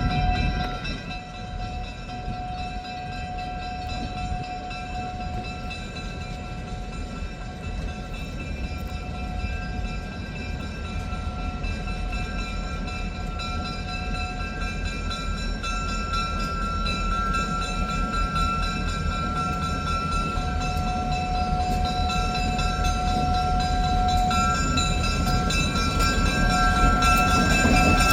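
Diesel freight train approaching, its engine rumble and rail noise growing steadily louder, with several steady high tones held throughout.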